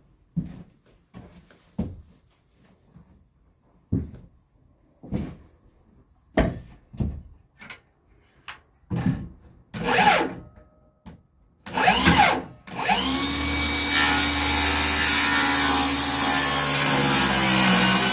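Knocks and clatter of wood and tools being handled, then, about thirteen seconds in, a circular saw starts and runs steadily, cutting a 40-degree bevel along a wooden board. Its motor tone sags slightly as the blade takes the load.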